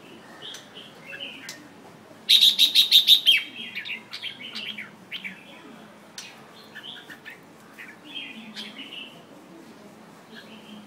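Red-whiskered bulbul singing: short chirpy notes, with a loud quick run of notes about two seconds in, then scattered shorter phrases.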